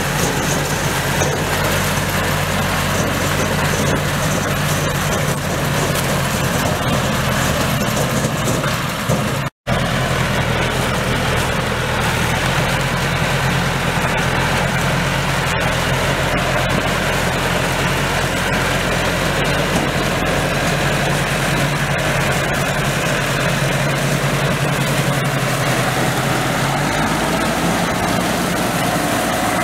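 Massey Ferguson tractor engine running steadily while it drives a pull-type ear-corn picker, with the picker's mechanical clatter over the engine. The sound cuts out for a moment about ten seconds in.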